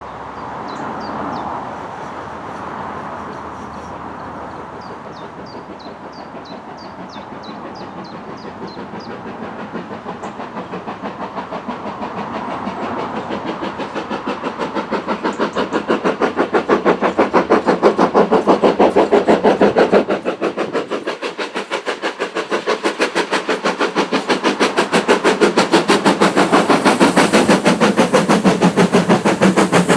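GWR 5101-class 2-6-2T steam locomotive 5199 working a train, its exhaust beating in a fast, even rhythm that grows steadily louder as it approaches, drops back briefly about two-thirds of the way in, then comes up loud again. Birds chirp faintly in the first few seconds.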